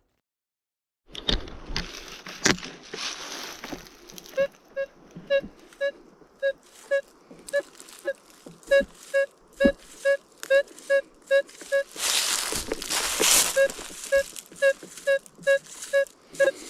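Minelab Manticore metal detector beeping over and over, short identical tones at about two a second, as the coil is swept back and forth across a buried target: a deep, clean signal. Rustling of leaves and brush at the start and again about two thirds of the way through.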